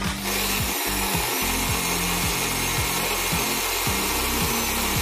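Sandpaper pressed against a used steel bearing ring spinning in an electric drill, giving a steady, loud sanding hiss over the drill's motor.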